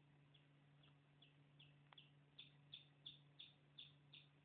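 Chicks peeping: a run of short, high, slightly falling peeps, faint at first and then louder and regular at about three a second from about halfway through.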